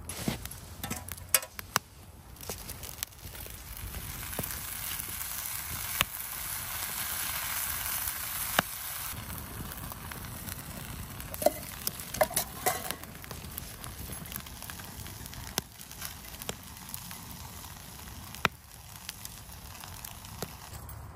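Wood campfire burning with a steady hiss and sharp crackling pops scattered throughout; the hiss swells for a few seconds in the first half.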